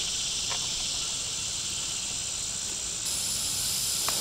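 Steady high-pitched insect chorus, with a faint click about half a second in and another near the end.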